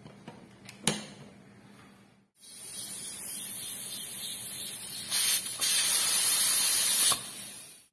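Steam hissing out of a pressure cooker's weighted valve as it is released by hand, with the beans inside up to pressure. The hiss grows louder a little past halfway, then dies away near the end. Before it there is a single knock.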